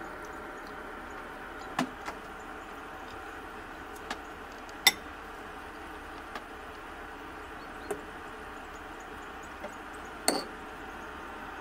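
Scattered knocks and clicks of kitchen work, about eight irregular taps with the sharpest about five seconds in and another about ten seconds in, over a steady hum that carries a few steady tones.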